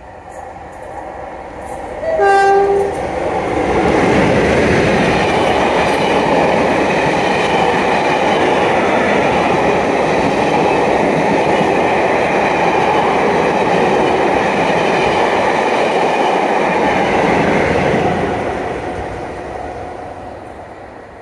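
Diesel-hauled passenger train sounds a two-tone horn about two seconds in, a short high note then a longer low one. The train then passes at speed, loud for about fifteen seconds, before fading into the distance.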